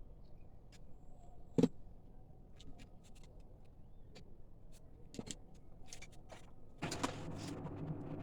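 Light handling clicks and knocks, one louder knock about a second and a half in, then about seven seconds in a small cordless drill's electric motor starts and runs steadily.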